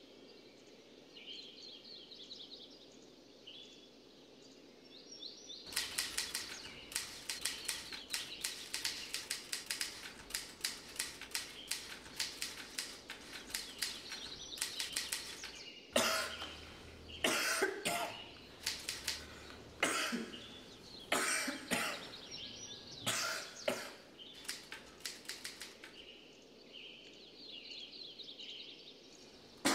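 Typewriter keys clacking in a fast, steady run of strokes for about ten seconds, then slower, heavier and irregular strokes. Faint bird chirps are heard at the start and again near the end.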